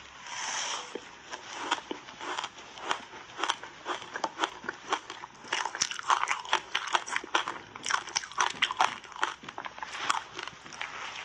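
Big bites into a block of frozen passionfruit ice coated in matcha powder, then chewing: a rapid, irregular series of sharp crunches and cracks, thickest about halfway through.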